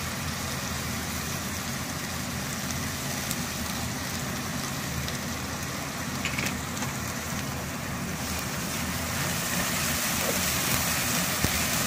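Onions, green chillies and ginger-garlic paste frying in hot oil in a pan: a steady sizzling hiss over a low steady hum.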